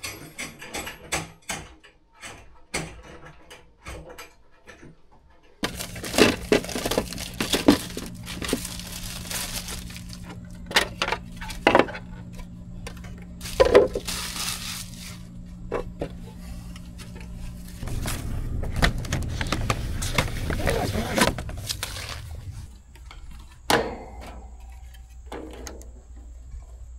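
Scattered clicks, knocks and metal clatter of hand tools and hardware being handled during a ductless mini-split install, over a steady low hum that shifts abruptly a few times.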